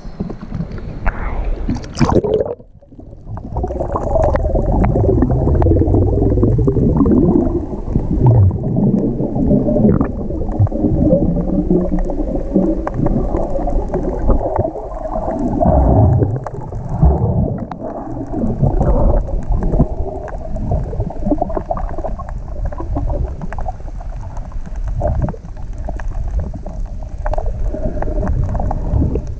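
Rough sea water churning and gurgling in the surf, heard muffled and loud, with a short dip about two and a half seconds in.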